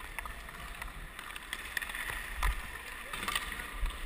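Ice hockey skates gliding and scraping across rink ice, with a low rumble of air moving past the camera's microphone. A handful of sharp clicks and taps are spread through it.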